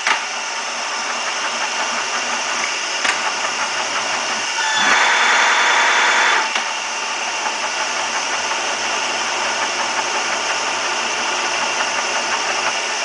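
Jarbe F2-CM universal milling machine running its table power feed along the X axis, a steady gear drone. There are sharp clicks about three and five seconds in as the feed levers are thrown, and a louder, higher whine for about a second and a half after the second click.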